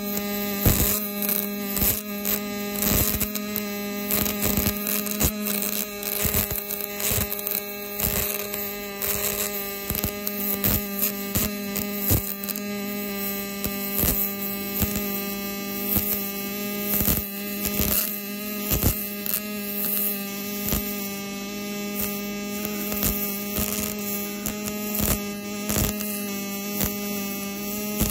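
MIG/MAG welding arc laying another pass of a multipass weld on steel: a steady buzzing hum with irregular crackles and pops throughout.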